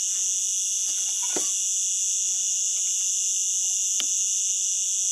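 Steady chorus of night insects such as crickets, a constant shrill drone at two high pitches. Two light knocks, about one and a half and four seconds in, come from the glass jar and steel cup being handled.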